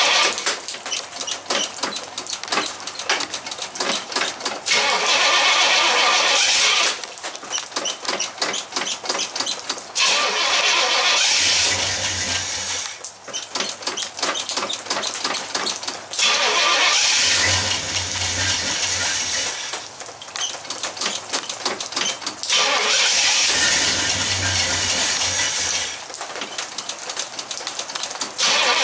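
1964 Pontiac GTO's 389 V8 on a cold start, cranked over and over by the starter. Stretches of rapid, even cranking pulses alternate about five times with louder, steadier stretches where the engine catches and runs for a few seconds.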